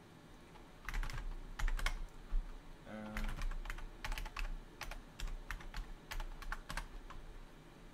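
Typing on a computer keyboard: a run of irregular key clicks starting about a second in and stopping shortly before the end.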